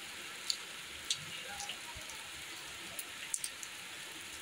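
Monsoon rain falling steadily, an even hiss with a few sharp drip ticks scattered through it.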